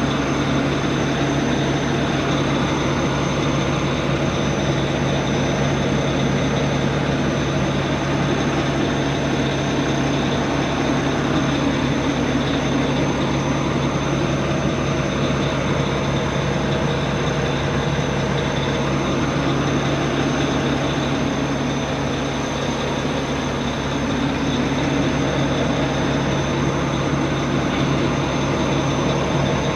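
Mack Pinnacle semi truck heard close to its rear drive tires: a steady diesel engine hum with rolling noise from the tires. The right-rear drive wheel's brake is not releasing.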